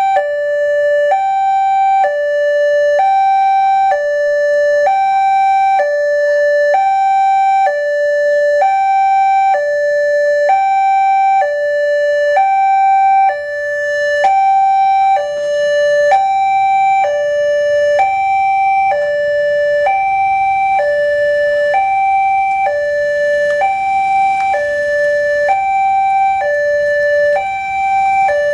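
Railway level-crossing warning alarm from a loudspeaker on the crossing pole: an electronic two-tone chime alternating steadily between a higher and a lower note, about one pair a second. It sounds as the barriers come down, warning of an approaching train.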